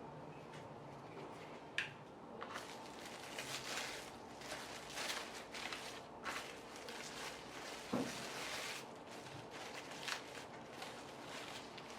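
Plastic wrapper crinkling and rustling in irregular bursts as ground chicken is rolled and wrapped into skinless longganisa, with two sharper knocks, about two seconds in and about eight seconds in.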